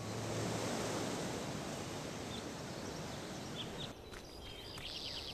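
Steady hiss of rain falling on foliage. About four seconds in it cuts off sharply to a quieter outdoor background with small birds chirping.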